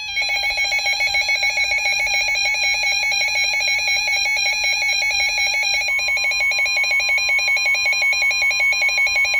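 Emergency alert attention tone: a loud electronic alarm tone warbling rapidly several times a second, with a steady, slightly higher tone joining about six seconds in, marking the start of a new warning broadcast.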